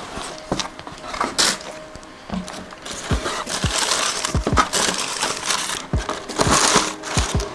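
Tissue wrapping paper rustling and crinkling in bursts as sneakers are unwrapped from their box, with several light knocks from handling the box and shoes.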